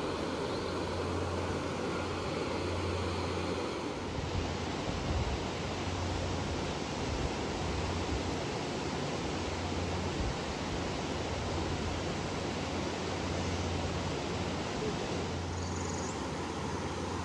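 Steady rush of Big Spring's outflow, a fast spring-fed stream running over rocks, with a low wind rumble on the microphone that swells and fades.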